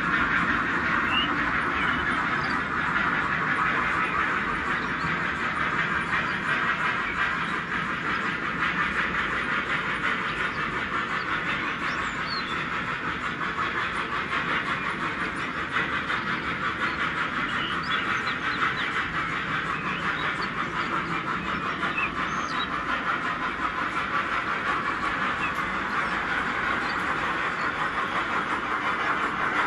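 H0-scale model freight wagons rolling along the layout's track: a steady, fine rattle of small metal wheels on the rails.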